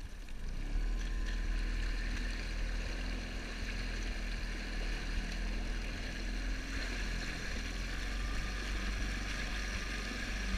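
A boat's outboard motor running steadily, coming in about half a second in and holding an even pitch.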